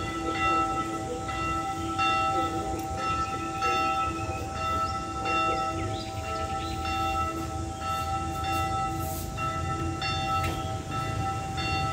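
Church bell tolling, struck over and over at a steady pace, each stroke ringing on into the next so the tone never dies away.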